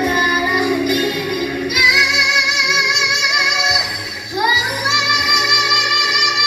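A child singing high and with power over backing music: two long held notes with a wavering vibrato, each reached by a quick slide up in pitch, the first about two seconds in and the second past the middle.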